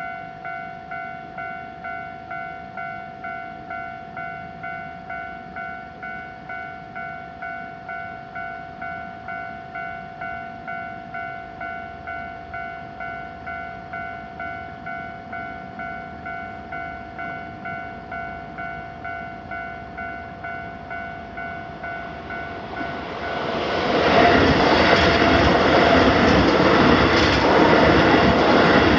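Japanese level-crossing alarm ringing its electronic bell in an even, rapid ding, about one and a half strikes a second. About 23 seconds in, a Keisei Main Line train rushes loudly through the crossing and drowns out the bell.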